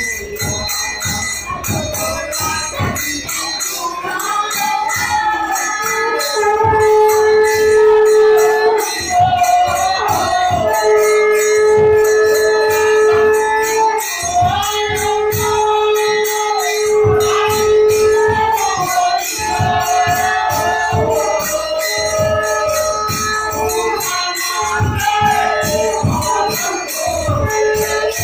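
Harinam sankirtan: voices singing a devotional chant with long held notes, over a khol drum struck in a steady rhythm and the constant ringing of small hand cymbals.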